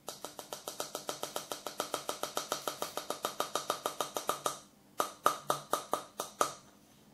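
Fingers tapping rapidly on the plastic hull of an opened shotgun cartridge, about eight taps a second, to shake the last of the powder out into a tin dish. A short pause comes after about four and a half seconds, then a second, shorter run of taps.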